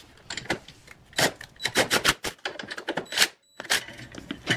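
Quick metal clicks and knocks, a dozen or so in uneven succession, as metal engine-bay parts (a tray and a bracket) are handled and set into place. The sound breaks off briefly about three-quarters of the way through.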